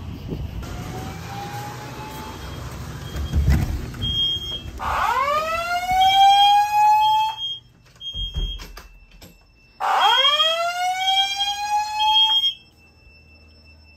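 Fire alarm voice-evacuation speakers sounding the whoop tone: a pitch sweep rising over about two and a half seconds, faint at first, then loud twice. A high beeping goes on and off alongside.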